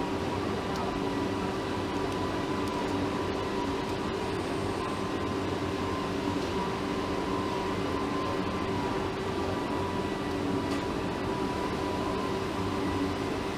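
Steady drone of factory machinery or ventilation, holding a few constant tones.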